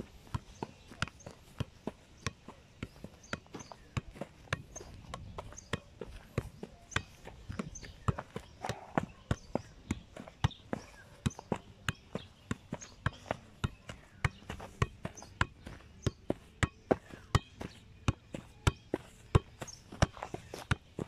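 Football being juggled keepy-uppy style, the ball kicked up again and again off adidas X Ghosted .1 soft-ground boots in a steady run of sharp touches, about two or three a second.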